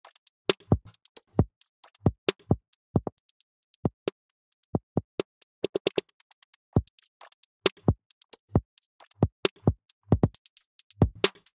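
Electronic drum loop heard only as its transients, the part that the OEK Sound Spiff transient shaper picks out in delta mode: sharp, isolated clicks of snare and kick attacks with silence between, some with a low thump. The hits shift as the plug-in's sensitivity and decay are adjusted.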